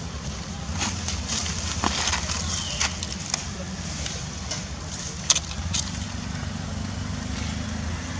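Steady low rumble with a hiss above it, broken by scattered short sharp clicks and rustles, the loudest about five seconds in.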